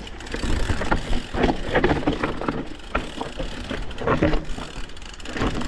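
Mountain bike riding over a rough, rocky dirt trail: tyres crunching over stones, with irregular knocks and rattles from the bike over a steady low rumble.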